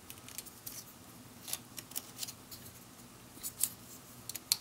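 Plastic LEGO Technic pieces being handled and pressed together, giving light scattered clicks, with a few sharper snaps of pins and beams fitting.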